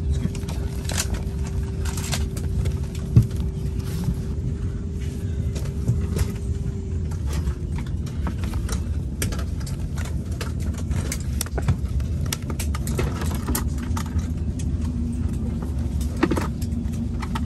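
Steady low cabin rumble of an Airbus A320neo, with a faint steady hum that gives way to a lower-pitched one about halfway through. Over it, paper crackles and rustles as a stiff safety card and a folded menu are handled, with one sharp click about three seconds in.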